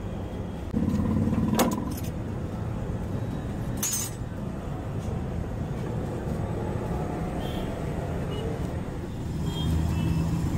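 Steady low background rumble, with a louder stretch about a second in and two sharp clicks or clinks about two seconds apart.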